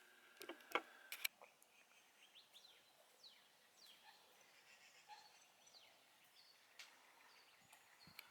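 Faint birds chirping: scattered short, quick sliding notes over a quiet background, with a few sharp clicks in the first second or so.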